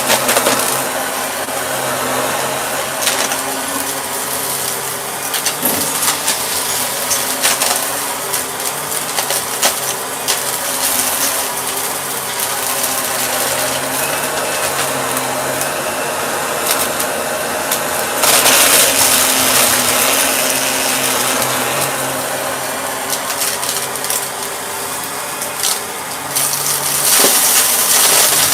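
Shark vacuum cleaner running with a steady motor hum and airflow hiss, and frequent small clicks and rattles. It gets louder and brighter for a couple of seconds about two-thirds of the way in.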